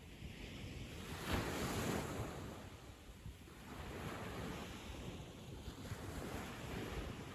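Ocean waves breaking on a sandy beach, one wave crashing more loudly about a second in, then the surf washing up and drawing back.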